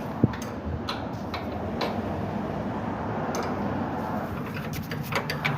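Scattered metallic clicks and taps of hand tools on a drum brake assembly, with one sharp click about a quarter second in, over a steady background hiss.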